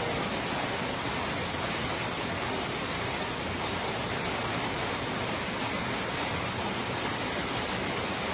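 Steady, even rushing of water in a condenser-water system, with no rhythm or changes.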